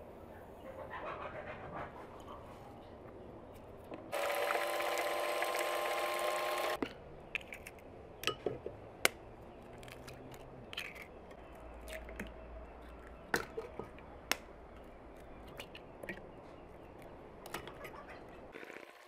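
An electric hand mixer runs steadily for about three seconds, starting some four seconds in, and cuts off abruptly. Then a run of short sharp clicks and taps as eggs are cracked one after another against a plastic bowl.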